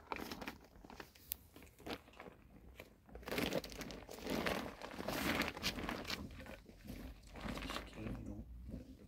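Heavy plastic sack of cold lay macadam crinkling and rustling as hands grip and shift it, with the loose tarmac chippings inside crunching. It comes in irregular bursts and is loudest in the middle.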